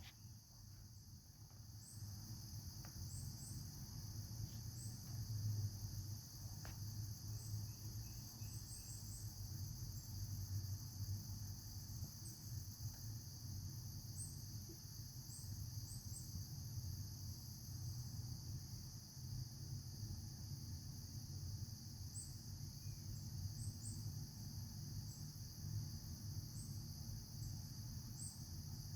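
A steady, high-pitched chorus of insects, with scattered short high chirps over it and a low steady rumble underneath.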